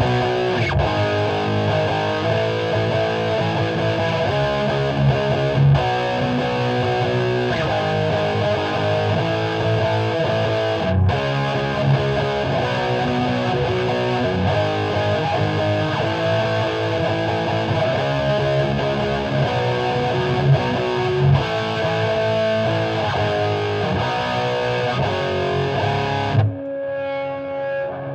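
Heavily distorted electric guitar riffing, a Jackson Kelly tuned to C sharp played through a Peavey 6505 II amp into a Marshall 1960 4x12 cabinet. Near the end the playing stops and a last chord rings out and fades.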